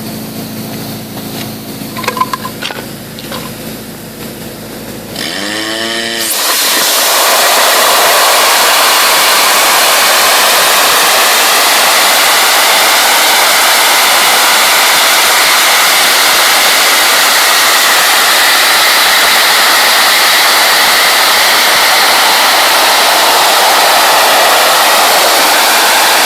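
Dry-ice blasting machine humming for a few seconds, then a brief rising sweep as the blast gun opens up into a loud, steady hiss of compressed air driving crushed dry-ice crystals against wood to strip off stain and dirt.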